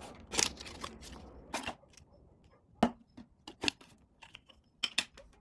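Unboxing: a cardboard box and its plastic packaging tray being handled, giving scattered taps, clicks and rustles, a few of them sharper knocks.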